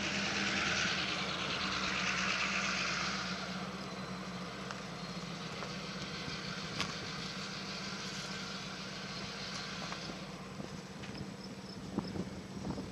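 A vehicle engine runs steadily with a low hum. A hiss over it fades away about three seconds in.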